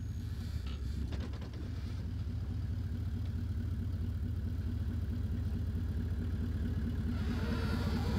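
Toyota LandCruiser 79 Series 4.5-litre V8 turbo-diesel running steadily, a low drone that grows slowly louder toward the end.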